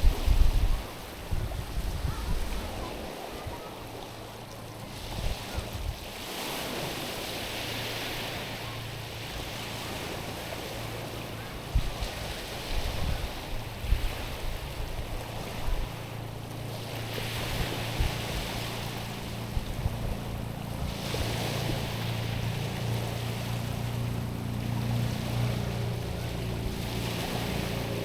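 Small waves washing in over a stony shore in surges every few seconds. Beneath them a low, steady engine hum sets in about six seconds in and grows louder toward the end, and wind buffets the microphone near the start.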